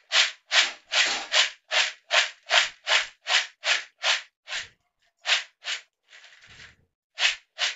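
Dry, crunchy fried snack mix (boondi, peanuts and roasted gram) rattling against a plastic bowl as the bowl is tossed by hand to mix in the spices, in quick regular shakes about two a second. There is a short pause and a softer rustle near the end, then two more shakes.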